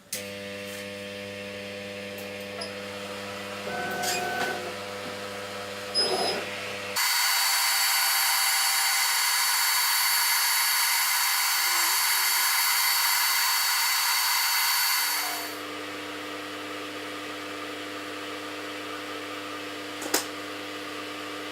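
Steady electrical machine hum in a workshop. For about eight seconds in the middle it gives way to a louder, high-pitched power-tool whir that starts and stops abruptly.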